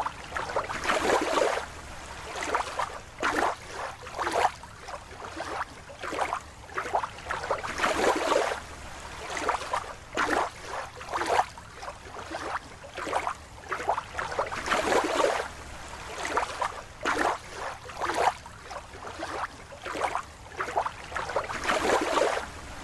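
Water sloshing in irregular rushes, roughly one every second.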